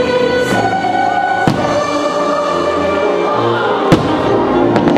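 Fireworks show soundtrack music playing, with aerial firework shells bursting over it. There are sharp bangs about a second and a half in and a pair near the end, and the loudest bang comes about four seconds in.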